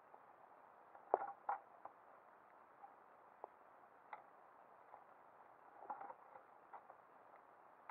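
Faint underwater ambience picked up by a submerged camera: a steady hiss with scattered sharp clicks and crackles, the loudest cluster about a second in and another around six seconds.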